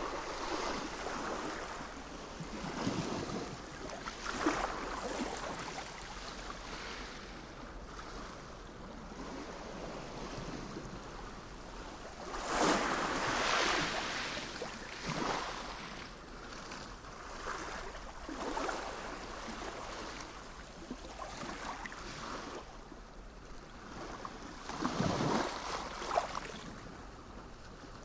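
Sea waves washing in, in repeated swells of rushing water that rise and fade every few seconds. The biggest wash comes about halfway through and another near the end.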